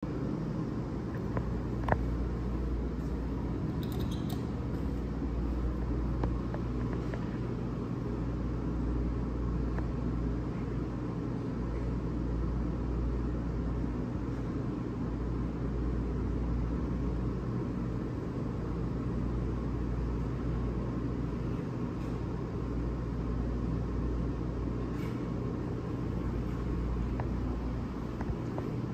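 Steady low rumble of background noise, with a few faint clicks, the sharpest about two seconds in.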